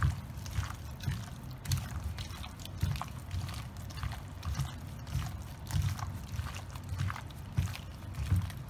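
Diced chicken and onion being mixed by hand through a thick yoghurt marinade in a stainless steel bowl. Wet squelching and slopping, with irregular low thuds and sharp wet smacks about twice a second.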